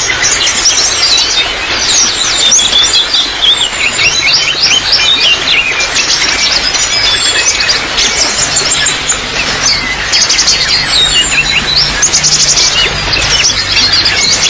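Trickling water with many small birds chirping and twittering over it, in quick overlapping calls and rapid trills.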